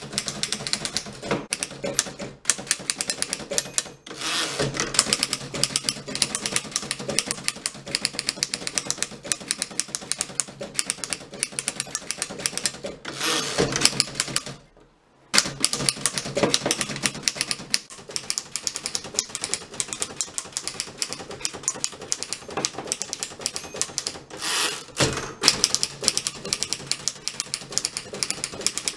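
A 1915 Fox No.24 manual typewriter being typed on fast: a quick, uneven run of sharp keystroke clacks. A few longer rasping sounds come in between, and there is a short break about halfway through.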